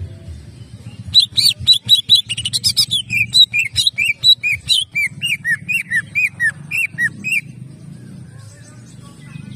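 Male green leafbird (cucak ijo) singing. About a second in it breaks into a fast run of sharp chirps, which becomes a steady string of short, curved whistled notes, about three a second. The song stops suddenly a little past seven seconds.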